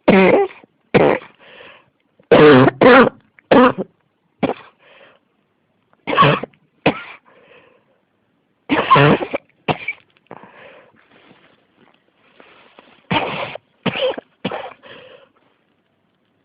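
A woman in a coughing fit she cannot stop: harsh, barking coughs in bouts of several coughs each, with short pauses and fainter sounds between the bouts.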